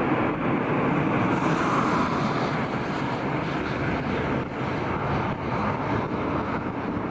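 Ilyushin Il-76 freighter's four Soloviev D-30KP turbofans at take-off power as it lifts off and climbs away: a loud, steady jet roar.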